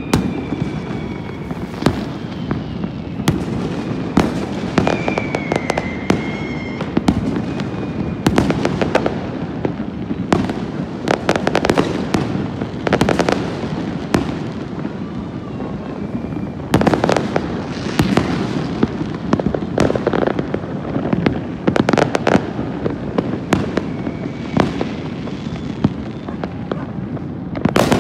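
Many fireworks going off across a city at once: a dense, unbroken barrage of bangs and crackles near and far. A few whistles gliding in pitch rise above it.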